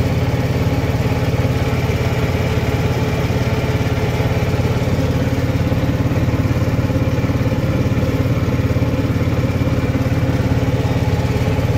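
Small engine of an auto-rickshaw running steadily, loud and close, heard from inside the open-sided passenger compartment while riding.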